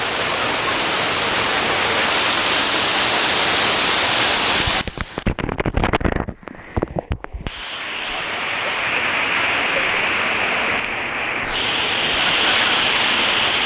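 Waterfall water rushing in a steady loud wash. Midway it breaks up for a couple of seconds into a string of abrupt drop-outs and sharp knocks before the steady rush comes back.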